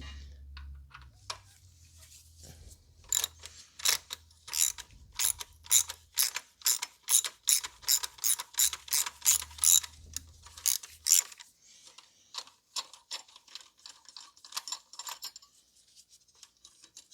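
Hand ratchet clicking in a long run of even strokes, about two to three clicks a second, as a T30 Torx bolt is backed out of a bracket on the engine; the clicks turn fainter in the last few seconds.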